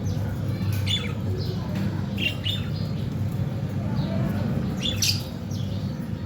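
Budgerigars chirping in short, scattered calls, a few seconds apart, over a steady low background rumble.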